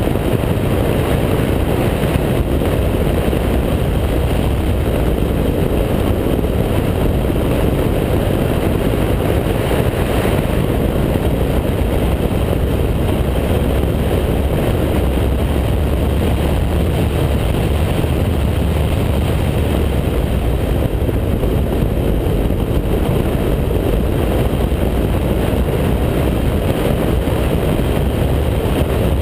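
Mazda MX-5 race car's four-cylinder engine running at speed, with wind rushing over the outside-mounted camera as a steady low rumble.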